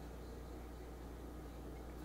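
Quiet room tone: a steady low hum under a faint even hiss, with no distinct sound standing out.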